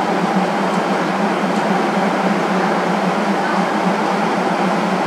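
Diesel passenger train standing at a station platform, its engine idling with a steady low hum.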